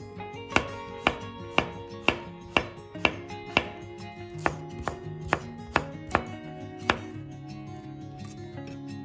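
Chef's knife slicing asparagus spears on a wooden chopping board: about a dozen sharp knocks, roughly two a second, with a short pause about four seconds in, stopping about seven seconds in.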